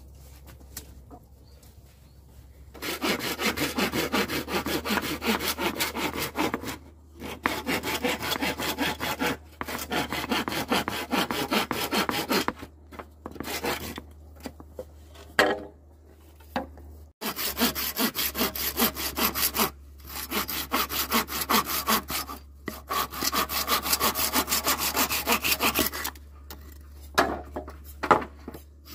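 Hand saw cutting bamboo in several bouts of quick back-and-forth strokes, with short pauses between bouts.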